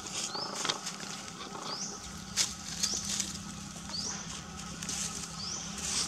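Short rising chirps from a small animal, repeating about every one and a half seconds, with a few faint clicks and rustles between them.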